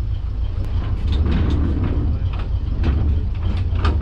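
Kominato Railway diesel railcar running along the line: a steady low engine and running rumble with irregular clicks and knocks from the wheels over the track.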